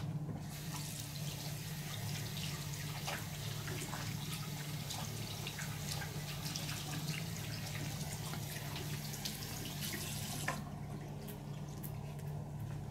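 Running water, a steady hiss with small scattered clicks, stopping abruptly about ten and a half seconds in. A steady low hum runs underneath.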